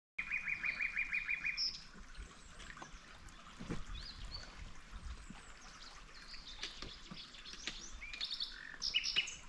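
Wild birds singing in woodland: a quick trill of rapidly repeated notes for about the first second and a half, then scattered chirps and short whistles from several birds.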